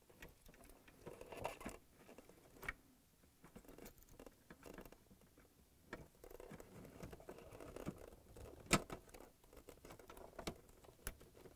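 Faint scattered clicks and rustling from hands handling wire leads and their small plastic-and-metal connectors while fitting them to a dishwasher thermal fuse, with one sharper click about nine seconds in.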